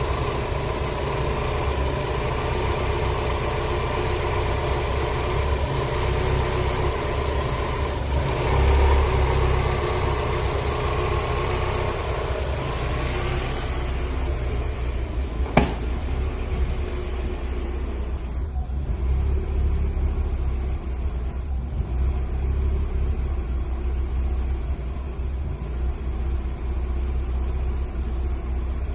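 1993 Mazda Miata's 1.6-litre four-cylinder engine idling very roughly, its low rumble pulsing unevenly, a rough idle that set in after the throttle body was cleaned. A single sharp click about halfway through.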